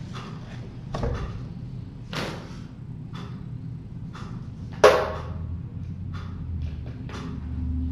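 A series of irregular knocks and thumps, the loudest and sharpest about five seconds in, over a steady low hum.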